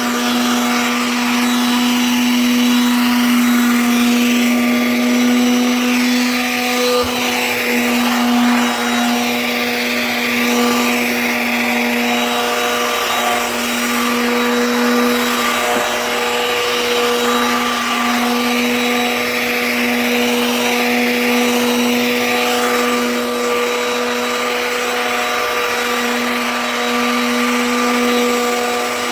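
Handheld electric sander running steadily with a constant motor whine, sanding down the cured Bondo patches on a granite countertop; a rougher rasping hiss swells and fades as it is worked over the surface.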